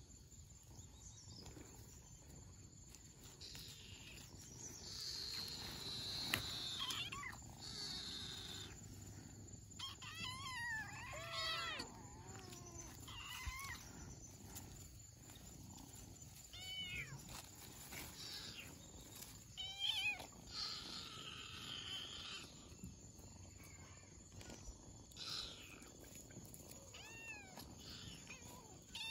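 Kittens meowing in short, high, rising-and-falling calls, scattered and irregular, as they jostle each other to suckle from their nursing mother.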